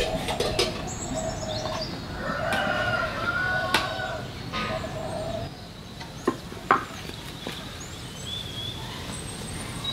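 Chickens calling: a run of drawn-out, repeated calls in the first half, fading later. Scattered clicks and knocks of cookware run alongside, with two sharp knocks about six and a half seconds in.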